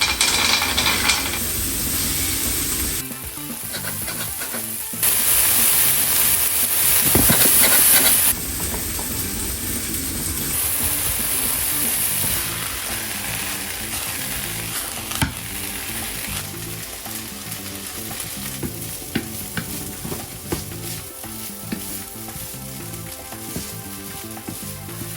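Food sizzling and frying in a hot pan, with stirring. The sizzle jumps in level several times and is loudest between about 5 and 8 seconds in.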